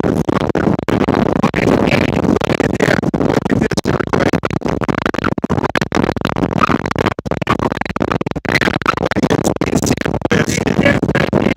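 Strong desert sandstorm wind buffeting the microphone: loud, ragged rushing and rumbling noise that surges and cuts out in many brief dropouts.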